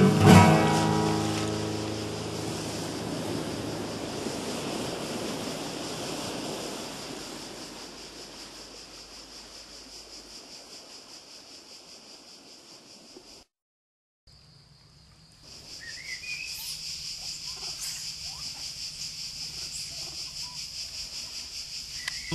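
A music chord dies away over the first dozen seconds. After a brief dropout, forest ambience follows: a steady, high-pitched, pulsing insect drone with a few short bird chirps.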